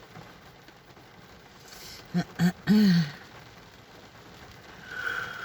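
Steady hiss of rain falling, with a brief murmured vocal sound from a woman about two seconds in and a faint high steady tone near the end.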